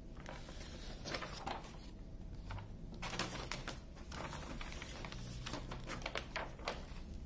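Release paper being peeled back off the adhesive of a diamond painting canvas, giving faint, irregular crackling and rustling that thickens into rapid little crackles from about three seconds in.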